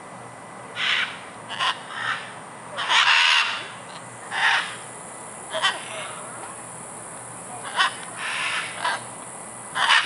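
Wild scarlet macaws squawking in the treetops: about ten loud, harsh, raspy calls at uneven intervals, the longest about three seconds in.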